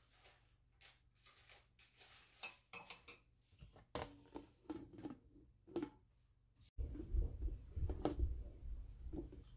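Metal spoon clinking and scraping in a plastic bowl of soaked bulgur wheat, then knocks as a plastic cover is put over the bowl. From about two-thirds in, a loud low rumble with knocks takes over.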